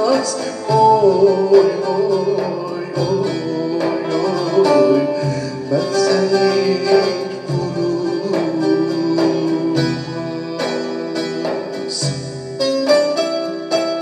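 Live band playing an instrumental passage of a Turkish folk song, an electronic keyboard leading the melody over a steady beat.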